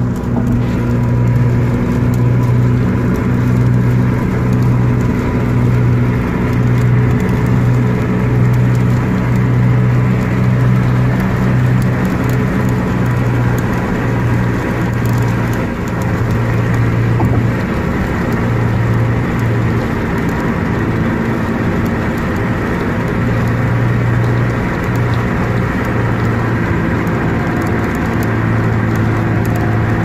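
Inside a moving Honda car on a wet freeway: steady engine hum and road noise, with rain.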